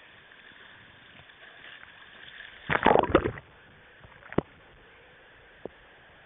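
Water splashing and knocking against a canoe in one short loud burst about three seconds in, followed by a single sharp knock a second later.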